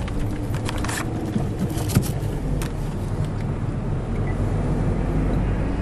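A car running and being driven: a steady low engine and road rumble, with a few light clicks and one sharp knock about two seconds in.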